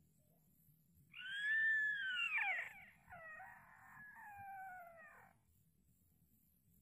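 A high animal call that glides up and down in pitch, starting about a second in and running for about four seconds in a few sweeping phrases. The loudest part comes first, then it fades.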